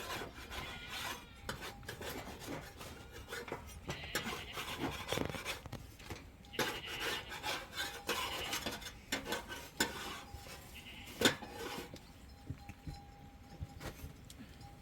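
Metal dishes and utensils clinking and scraping: scattered clicks and stretches of rasping scraping, with one sharper knock a little past eleven seconds in.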